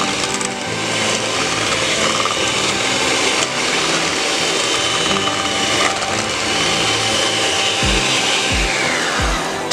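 Rival electric hand mixer running steadily, its metal beaters churning thick cornbread batter in a stainless steel bowl.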